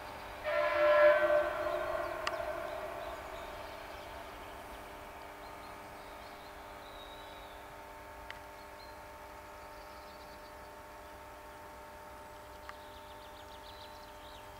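Electric train's horn sounding once, a loud pitched blast starting about half a second in that fades away over the next two or three seconds. A faint steady hum from the passing train follows.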